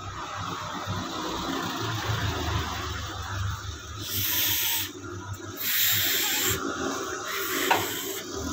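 Hands vigorously rubbing a limp newborn kitten right against the microphone to stimulate it into breathing. It starts as low rustling, and from about halfway in there are three loud hissing rubs of about a second each.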